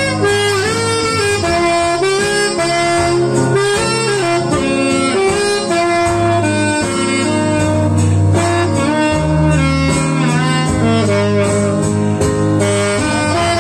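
Alto saxophone playing a jazzy melody of held and sliding notes, over accompaniment with a steady bass line underneath.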